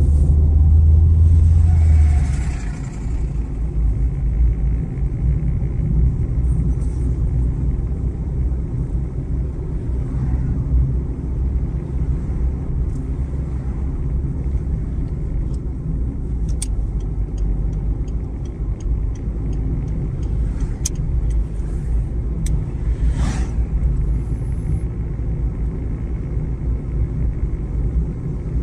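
Steady low rumble of a car driving along a road, engine and tyre noise heard from inside the car. It is louder for the first two seconds, and there is a short run of quick faint ticks a little past the middle.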